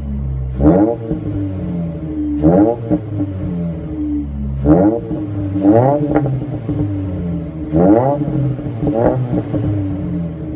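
Ford Focus ST170's four-cylinder engine idling and blipped six times, each rev rising quickly and falling back to idle. There is one sharp pop through the exhaust just after the fourth rev.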